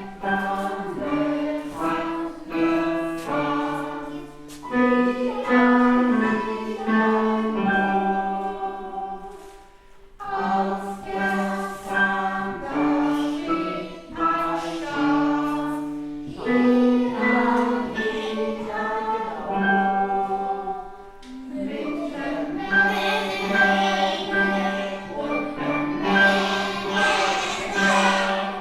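Music: a choir singing with instrumental accompaniment, in phrases of distinct held notes, with a short pause about ten seconds in.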